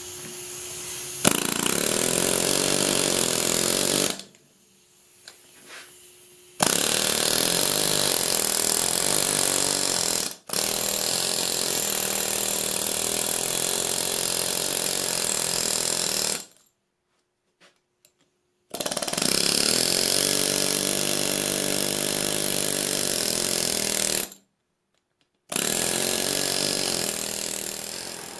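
Husky pneumatic air hammer with a fuller bit hammering rapidly into red-hot steel on the anvil, shaping the groove of a bottom swage block. It runs in about five bursts of several seconds each, with short pauses between them.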